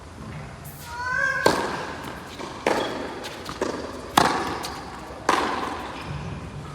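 Tennis ball being struck by rackets and bouncing on the court: about five sharp knocks, roughly a second apart, over a low steady rumble of wind on the microphone. A short voice call comes just before the first knock.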